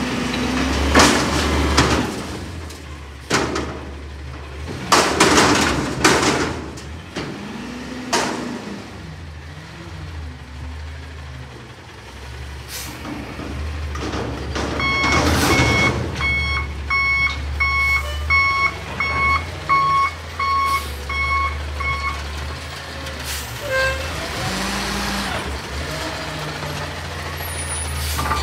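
Natural-gas Peterbilt 320 front-loader garbage truck running with a steady low engine hum, with several sharp air hisses in the first half. From about halfway in its reversing alarm beeps a dozen times, evenly spaced, as the truck backs up.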